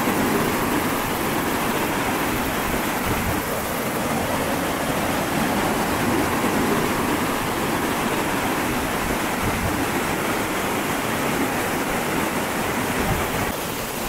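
Waterfall in heavy flow after strong rain: a steady, powerful rush of falling water.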